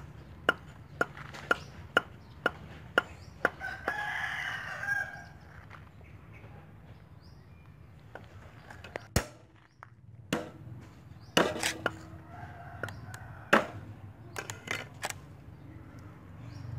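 Cleaver chopping green onions on a thick round wooden chopping block, about two sharp strokes a second for the first few seconds. A rooster crows once about four seconds in, and later there are scattered knocks and taps on the board as the cleaver is set down and garlic cloves are handled.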